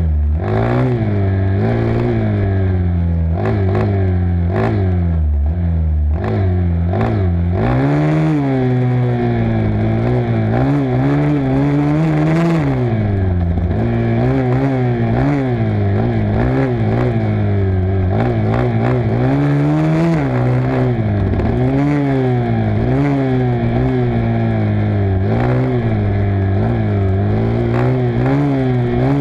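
Off-road single-cylinder engine running hard on a dirt trail, its pitch rising and falling continuously with throttle and gear changes. Several short clatters and scrapes come through in the first seven seconds or so.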